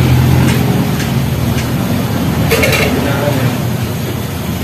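A vehicle engine running with a low steady hum that fades after the first second or two, under people talking.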